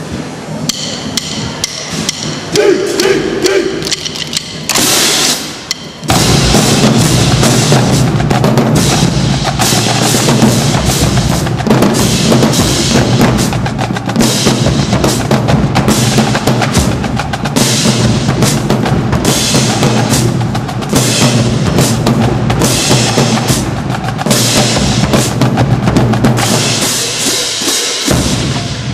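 Marching drumline playing snare drums, bass drums and crash cymbals. Scattered strikes and a cymbal crash come first, then about six seconds in the full line takes up a dense, steady cadence. The low drums drop out just before the end.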